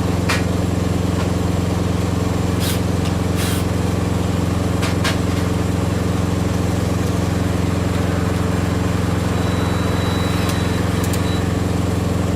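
Engine idling steadily at an even pitch, with a few light clicks and knocks now and then.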